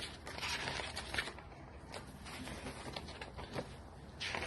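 Faint rustling and light clicks of a picture book being opened and its pages handled.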